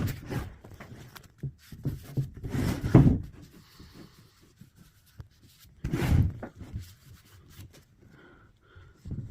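Hand work on a wooden chair: three loud rubbing or handling noises, about three seconds apart, with small knocks and clicks between them.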